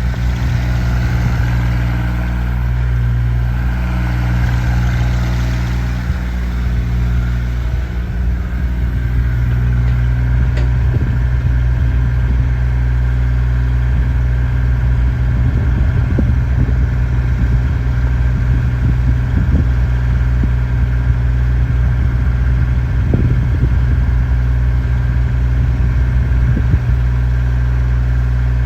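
JCB 8018 mini excavator's diesel engine running steadily at idle. A few short knocks and clatters sound in the second half.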